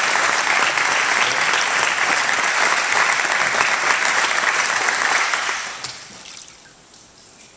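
Congregation applauding, which dies away about five and a half seconds in.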